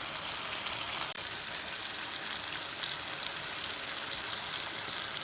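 Marinated boneless chicken pieces with chopped garlic and chillies sizzling in hot oil over high heat as they are dry-roasted: a steady hiss speckled with fine crackles.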